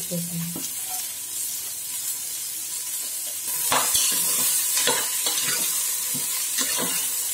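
A steel spoon stirring chopped vegetables and dal in an aluminium pressure cooker, scraping against the pot in quick strokes from about four seconds in, over a steady sizzle.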